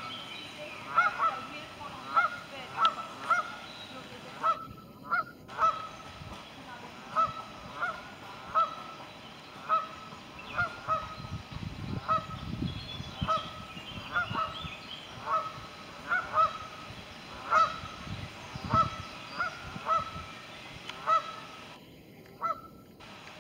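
Canada geese honking repeatedly, short calls coming about once or twice a second.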